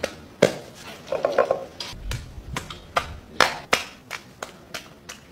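Ingredients being worked in a volcanic-stone molcajete: a string of sharp, uneven knocks and clicks, about three a second, with a dull thump about two seconds in.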